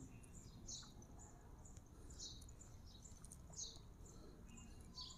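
Faint bird calls: four short, high chirps that sweep downward in pitch, about a second and a half apart, over near silence.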